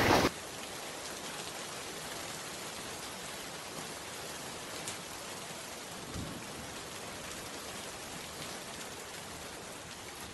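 Steady rain falling, a light shower, with a faint tap or two about five and six seconds in.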